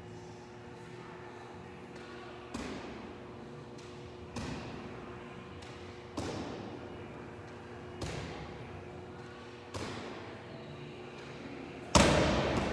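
Medicine ball wall-ball reps: a dull thud about every two seconds, five times. Near the end comes a much louder thud as the ball is dropped to the rubber gym floor.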